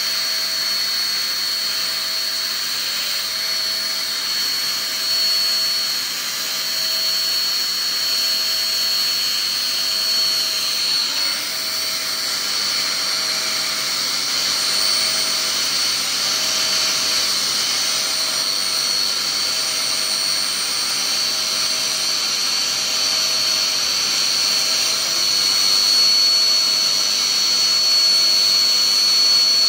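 A CNC milling machine's spindle runs at speed with a steady high-pitched whine as a fine engraving bit cuts lettering and symbols into a wooden instrument panel. A lower tone pulses on and off about once a second underneath.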